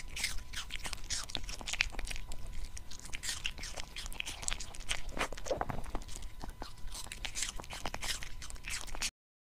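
Small poodle crunching and chewing food, picked up close on a clip-on microphone on its chest: a dense run of crisp crunches and mouth clicks that stops abruptly near the end.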